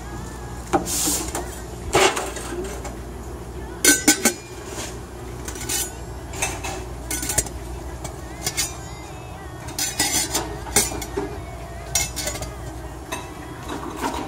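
Lids of stainless steel snack canisters being lifted and set back, metal clinking and clanking again and again. Three sharp clanks come close together about four seconds in. A steady low hum runs underneath.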